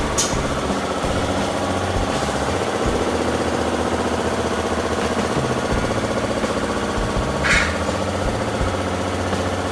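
An engine running steadily at an even speed, with a brief hiss about three-quarters of the way through.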